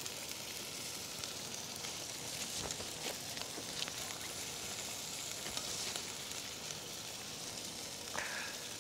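Prawn curry gravy sizzling in a hot wok, a steady hiss. A few faint clicks come from metal tongs against the pan and plate as the prawns are lifted out.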